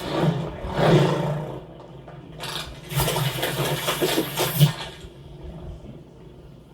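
Cartoon sound effects: loud bursts of rushing, hissing noise over a low rumble, one in the first second and a half and a longer one from about three to nearly five seconds in, then quieter.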